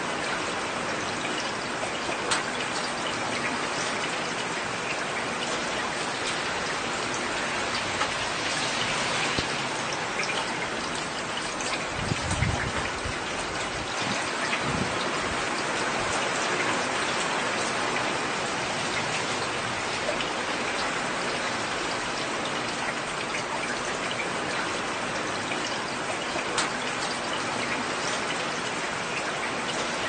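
Heavy rain pouring down in a steady hiss, with occasional sharper drop hits. A brief low rumble comes near the middle.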